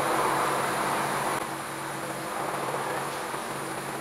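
Brass Trangia spirit burner burning alcohol with an open flame: a steady rushing hiss that drops somewhat in level about a second and a half in.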